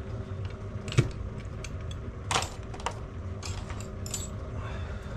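Small metal motorcycle parts and fixings being handled on a workbench: a few sharp clicks and light metallic clinks as pieces are picked up and set down, over a low steady hum.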